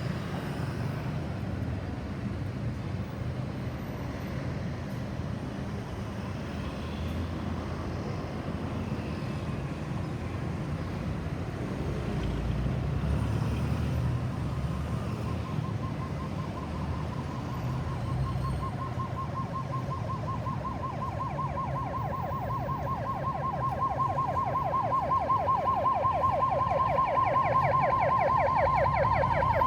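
Ambulance siren approaching through road traffic noise, its fast up-and-down sweeping tone coming in about halfway through and growing steadily louder.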